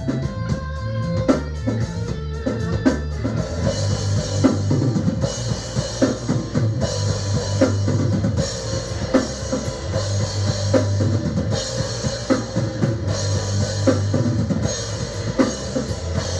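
Live heavy metal band playing: distorted guitar and bass over a drum kit, with snare hits about every 0.8 s and cymbals washing in about four seconds in.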